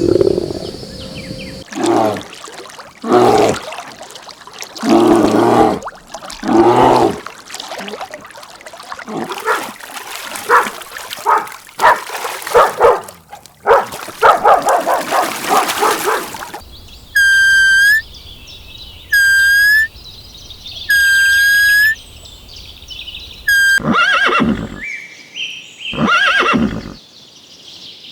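Farm animal calls in a string of separate clips: a run of short repeated calls, then longer trembling calls, then three high, even-pitched calls about a second long and two seconds apart, then two more calls near the end.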